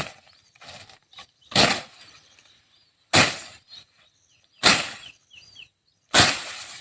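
A tool chopping into wood with heavy, sharp blows, five strikes about a second and a half apart, each ringing off briefly. Faint bird chirps come between the blows.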